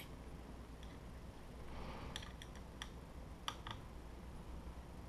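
A handful of faint, sharp light clicks and taps, mostly bunched between about two and four seconds in: small tools and printer parts being handled while the power supply is screwed to the frame.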